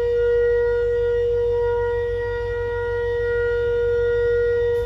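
WDP-4D diesel locomotive's horn sounding one long, steady single-note blast that cuts off near the end, with a low rumble underneath.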